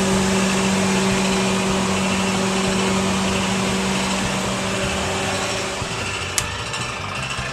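Refrigerator compressor and circulation fan of a dry-cure cabinet running with a steady hum, with a sharp click about six seconds in. The owner has been told the noise comes from a shim.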